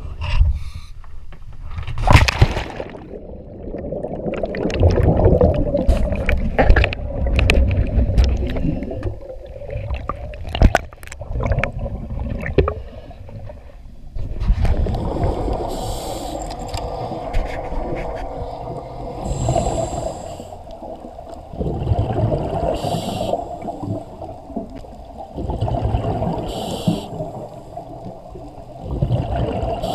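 Scuba diving sounds heard underwater. A sudden splash-like burst comes about two seconds in as the diver goes under, then churning water. After that, regulator breathing with short hisses of exhaled bubbles comes about every three to four seconds.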